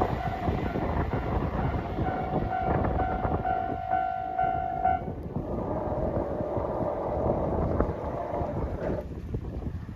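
A train running along the line just after passing, its rumble continuing and dropping away near the end. A pitched tone sounds on and off from about two to five seconds in.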